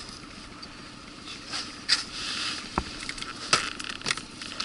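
Handling noise in an inflatable boat while a hooked fish is fought beside it: a few sharp knocks and scrapes, with a brief hiss about two seconds in.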